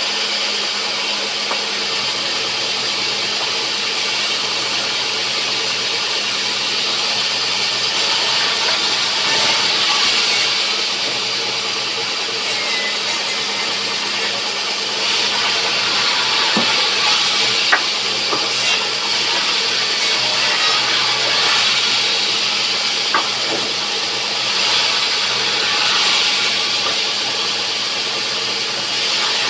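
Sawmill machinery running steadily: a constant machine hum under a hissing noise that swells and fades a few times, with a couple of sharp ticks about halfway through.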